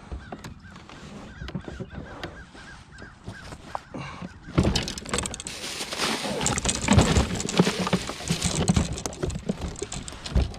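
A landed redfish thrashing while it is handled in the boat: a dense, irregular run of slaps and knocks, loudest from about four and a half seconds in.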